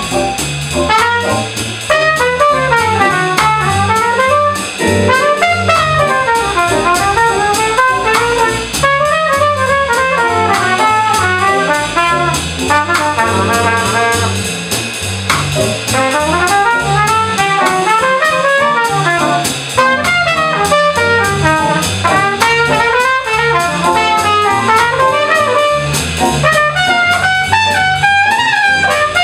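Trumpet soloing in quick, running phrases over a small jazz combo playing swing, with upright bass and drum-kit cymbals keeping time beneath.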